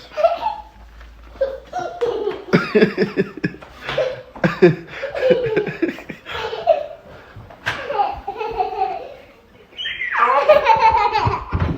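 Laughter in repeated bursts, louder and higher near the end.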